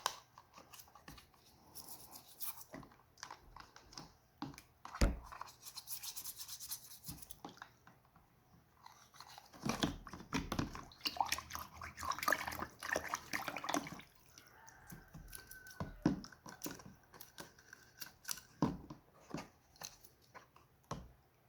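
Old toothbrush scrubbing inside a Victorinox Swiss Army knife, between its opened blades, in irregular bursts of brisk brushing with short pauses. A few sharp knocks from handling the knife come in between.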